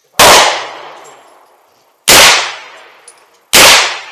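Three single gunshots from a firearm, about two seconds and then a second and a half apart, each followed by a long echoing tail.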